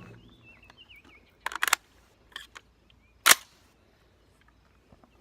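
Sharp cracks of AR-15 rifle fire on a shot-timer drill: a quick cluster of sharp reports about a second and a half in, a weaker pair just after two seconds, and a single loudest shot a little past three seconds. A bird chirps faintly near the start.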